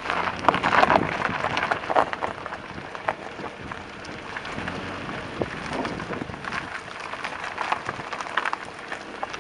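Brake caliper on a Mazda 3 (BK) rattling in a dense, irregular clatter of small metallic knocks, loudest in the first couple of seconds. It is the sign of a stretched caliper clip that lets the parts knock about.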